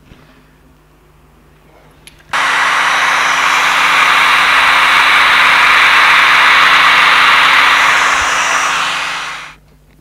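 Handheld hair dryer switched on about two seconds in and blowing steadily for about seven seconds, heating the adhesive under the tablet's glass, then switched off and dying away near the end.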